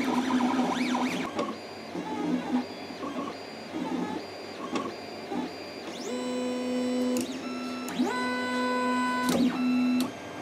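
Anet ET5X 3D printer's stepper motors whining through the last moves of a print. First come quick chirping moves, then a few longer travel moves that each rise in pitch, hold a steady whine and stop about ten seconds in, as the print finishes.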